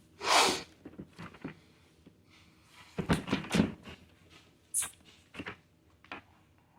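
Scattered clicks, taps and knocks of plastic Lego pieces being handled and pressed together, with a short rushing noise near the start and a sharp high snap just before the end.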